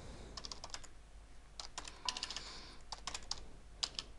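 Typing on a computer keyboard: several quick runs of key clicks with short pauses between them.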